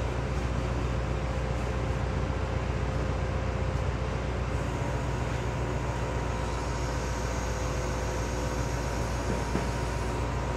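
Steady low mechanical drone with a faint constant whine over it, unchanging throughout: machinery running.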